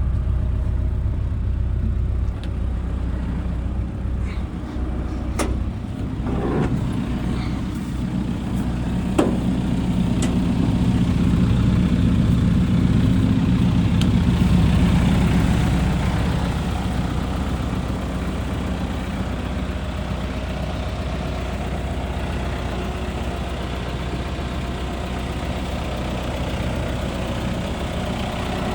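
Diesel engine of a Hitachi ZX170W-5B wheeled excavator running steadily, louder for several seconds around the middle. A few sharp clicks and knocks come in the first ten seconds.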